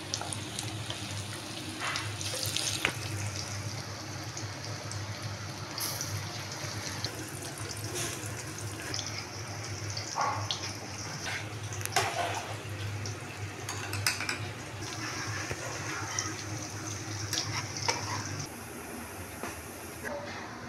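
Pakora batter deep-frying in hot oil in a steel pan, a steady sizzle, with a few sharp clinks against the pan.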